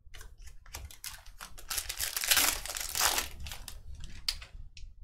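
Foil wrapper of a Panini Prizm football card pack crinkling and tearing open by hand. The crinkling is densest and loudest about two to three seconds in, with short clicks and rustles of handling before and after.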